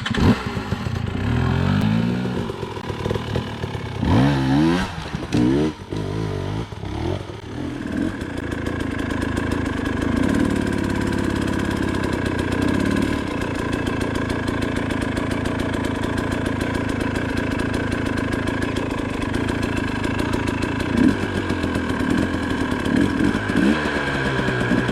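KTM 300 two-stroke dirt bike engine given a few short throttle blips in the first seven seconds, each a quick rising rev, then settling to a steady idle.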